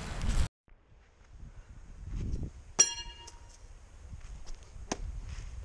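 A thrown tomahawk strikes with a sharp impact about three seconds in, and the steel rings briefly afterwards. A second, shorter knock follows about two seconds later.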